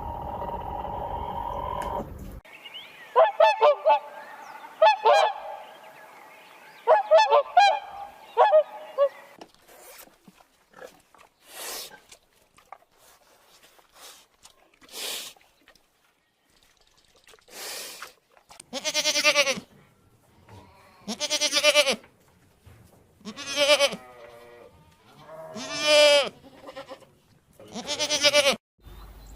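Farm animals calling: a run of short honking calls in quick clusters, then five long, quavering bleats about two seconds apart, the loudest sounds here.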